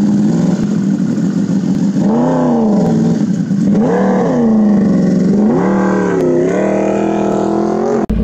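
Yamaha R1M's crossplane inline-four engine, breathing through an Arrow exhaust, idling and then blipped three times. The first two revs rise and fall quickly, and the third is held for about two seconds before it drops back to idle.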